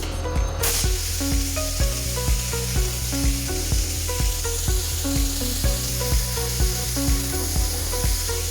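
Background music with a steady beat of about two thumps a second, over a steady high hiss from an OMAX MAXIEM 1530 abrasive waterjet cutter spraying as it cuts.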